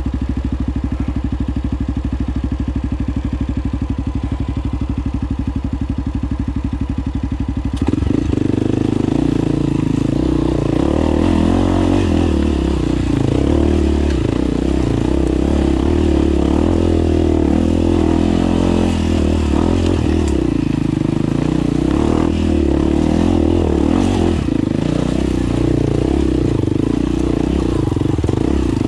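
Off-road motorcycle engine running. For about the first eight seconds it holds a steady, even note; then it changes suddenly to a louder, uneven note that rises and falls with the throttle as the bike is ridden.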